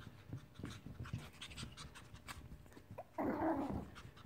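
Maltese puppies panting close by in quick, short breaths, with a louder breathy rush of sound about three seconds in.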